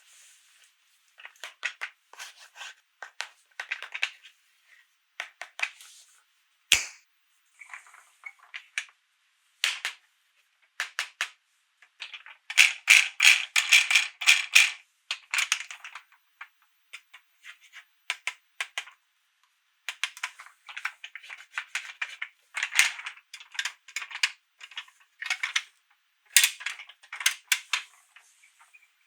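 Hands unwrapping and handling plastic toy packaging and pieces: bursts of rapid crackling and clicking with short pauses, plus a sharp knock about a quarter of the way in.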